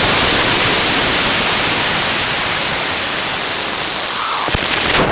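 Airflow rushing over the microphone of a camera mounted on a high-power rocket in flight: a loud, steady rushing hiss that eases a little, with a few knocks near the end.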